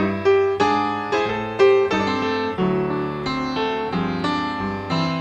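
Background music: a solo piano playing a calm melody, one note or chord struck about every half second, with no drums.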